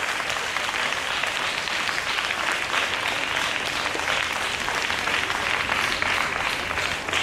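A small group of people clapping their hands in steady applause.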